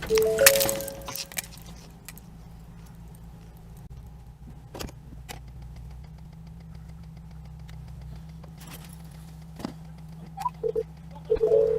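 Dash-cam audio from a car just after a collision: a loud rattling crash noise with a few brief tones dies away in the first second and a half. Then comes a steady low vehicle hum with scattered sharp clicks, and short tone beeps near the end.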